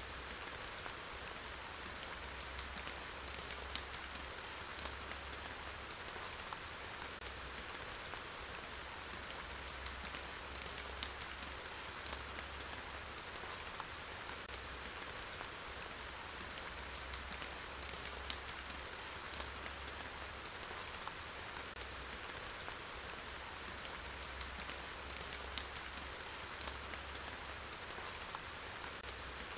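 Steady rain falling, an even hiss with scattered individual drops ticking throughout.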